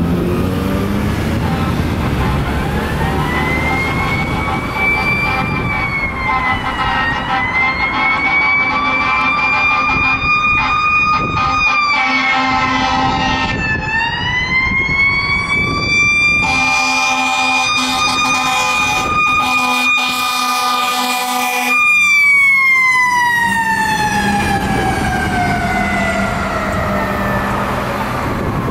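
Pierce Enforcer aerial ladder truck's siren on an emergency run, winding up and down in pitch and then coasting down slowly near the end. It is broken by a short blast of the air horns about twelve seconds in and a long blast lasting about five seconds a little later.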